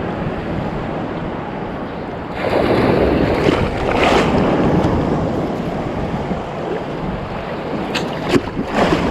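Rough ocean surf breaking on the beach with wind buffeting the microphone; a wave surge builds louder about two seconds in and then eases off.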